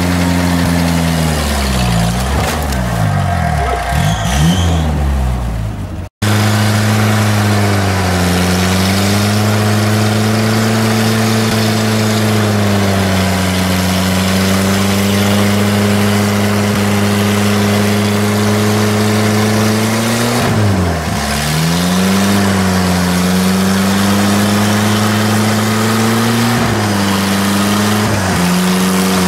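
GAZ-69 off-roader's engine running hard under load as it climbs, its revs sagging and picking back up several times. A brief break about six seconds in.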